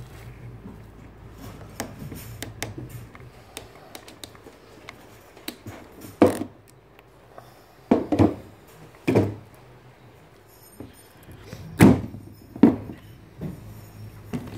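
Light clicks, then several sharp knocks and thunks from a hand ratchet wire-rope swaging tool and the steel wire and ferrules being worked and handled.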